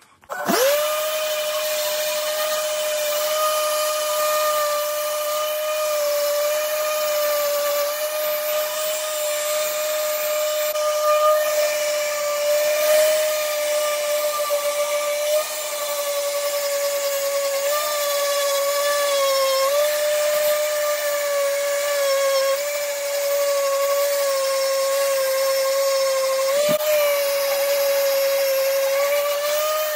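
Random orbital sander switched on just after the start and running steadily with a high whine that wavers slightly in pitch. It is sanding down the cured first epoxy seal coat on an oak slab to flatten the bubbles before the second coat.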